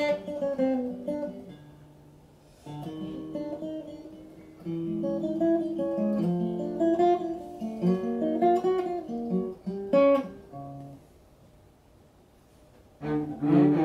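Acoustic guitar played solo: plucked chords and single-note runs, with a short lull about two seconds in, and dying away a couple of seconds before the end.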